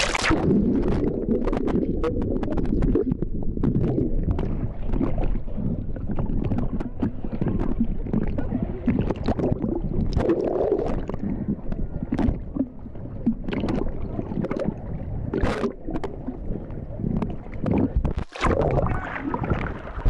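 Sea water sloshing and gurgling over a camera held at the waterline, muffled and low, with sharp splashes now and then as small waves wash over it.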